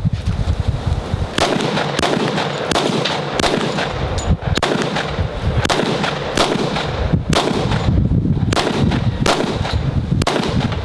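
Glock 20 Gen5 10mm pistol firing a steady string of single shots, about fourteen in all, roughly one every two-thirds of a second, starting about a second and a half in.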